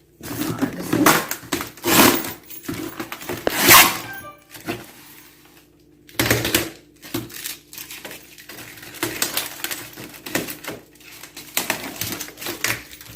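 Unpacking a boxed sewing machine by hand: irregular rustling, scraping and knocking of the packaging, loudest a little under 4 seconds in, with a short lull about halfway.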